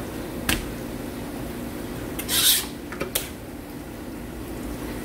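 Kitchen knife working on a white plastic cutting board while filleting and skinning a fish: a sharp knock about half a second in, a short rasping scrape near the middle, then another knock. A steady low hum runs underneath.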